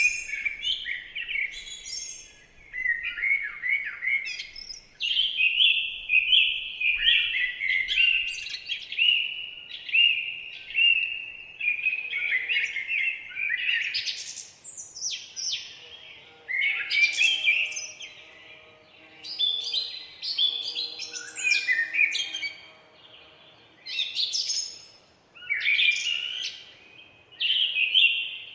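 Forest songbirds singing: a continuous run of high, quick chirping and warbling phrases, one after another with short gaps.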